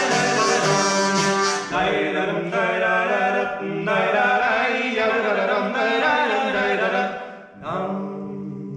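Bagpipe over a steady drone with guitar, playing a folk tune; the strumming drops out about two seconds in. Near the end the tune closes on a last chord that fades away.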